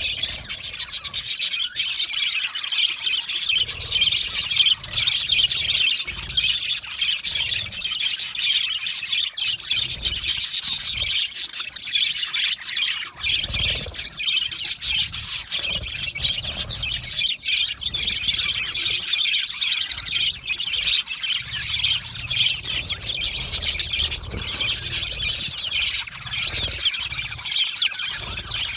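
A flock of budgerigars chattering and chirping continuously, many birds overlapping in a dense warbling stream, with low rumbles coming and going underneath.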